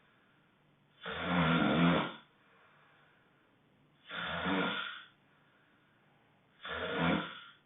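Loud honking snoring: three snores, each about a second long, coming roughly every three seconds with quiet breathing pauses between them.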